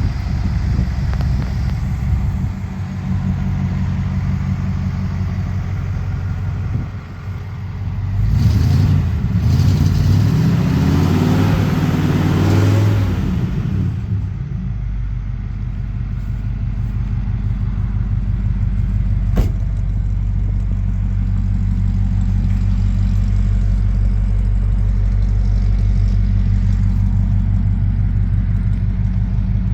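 Restored 1951 Ford pickup's flathead engine running at a steady idle, revved up for several seconds starting about eight seconds in, then settling back to idle. A single sharp click comes about two-thirds of the way through.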